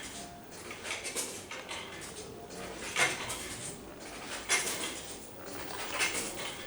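Clatter of cups, dishes and cutlery: irregular clinks, with sharper knocks about three, four and a half and six seconds in.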